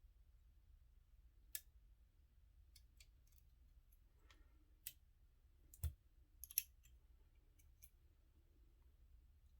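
Faint, scattered metallic clicks and ticks of lock-picking tools working the pins of a dimple-core U-lock cylinder, with the sharpest clicks about six seconds in.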